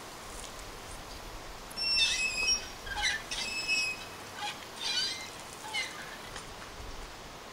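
Hand water pump squeaking as its handle is worked up and down, a short high squeak on each stroke. The squeaks start about two seconds in and stop about six seconds in.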